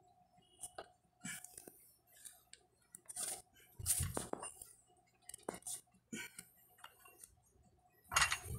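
Metal plates on a plate-loaded adjustable dumbbell clinking and rattling in short, irregular knocks as the dumbbell is curled, with louder knocks about four seconds in and near the end.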